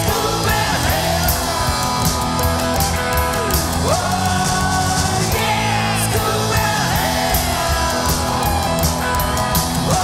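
Rock song with electric guitar and drums playing a stretch without sung words, the guitar sliding and bending notes over steady beats.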